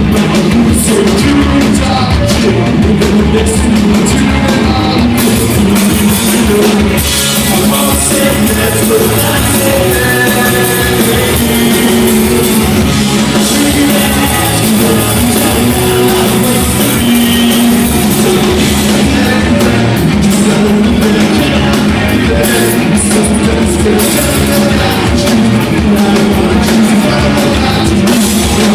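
Live rock band playing loud: electric guitars and drums with a singer.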